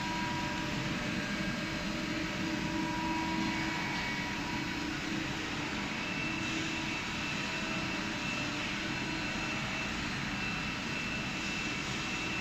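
CNC lathe machinery running: a steady mechanical whir with held whining tones, and a higher whine that comes in about six seconds in.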